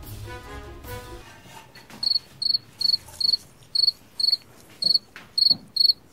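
Cricket-like chirps, short and high-pitched, evenly spaced at about two and a half a second, starting about two seconds in once the background music has stopped.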